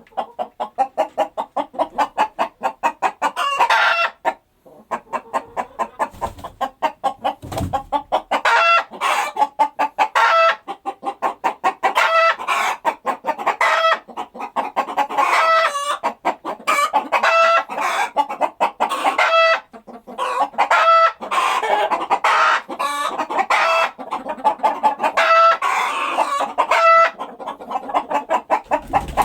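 Chickens clucking in a fast, continuous stream of short clucks, several a second, with louder pitched calls breaking in every second or so. The clucking drops out briefly about four seconds in.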